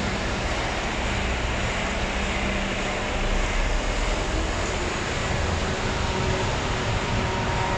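Diesel engine of a Mercedes-Benz Arocs concrete mixer truck running as the truck pulls forward, its low rumble growing about three seconds in.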